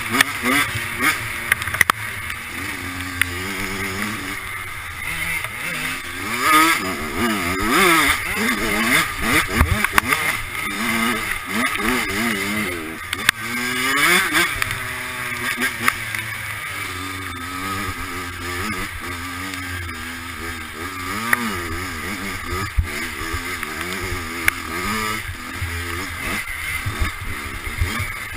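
Dirt bike engine with a freshly rebuilt top end, revved hard and repeatedly rising and falling in pitch as the rider works the throttle and gears, with wind noise on the microphone.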